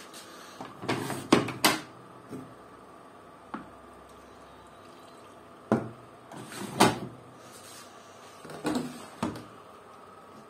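Plastic detergent dispenser drawers of front-loading washing machines being pulled open and handled: sharp plastic clacks and knocks in clusters about a second in, around six to seven seconds in and near nine seconds in, over a faint steady hum.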